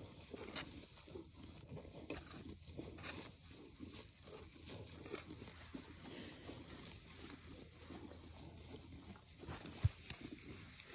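Soft, irregular rustling and scraping from a puffer jacket and dry leaves as a cow is hand-milked, with one sharp thump about ten seconds in.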